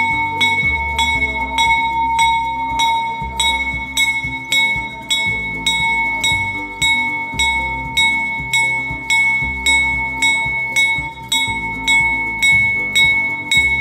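Instrumental background music built on a bell-like chime struck evenly about three times a second, ringing over slowly changing low chords.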